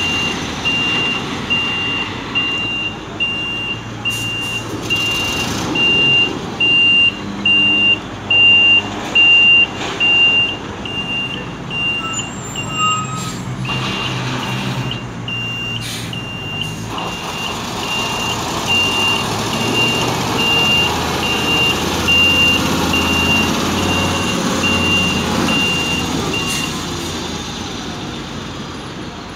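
Reversing alarm beeping evenly, a little over once a second, over the running diesel engine of a Demag AC 615 all-terrain mobile crane as it manoeuvres. The beeping stops a few seconds before the end, while the engine keeps running and rises somewhat in the second half.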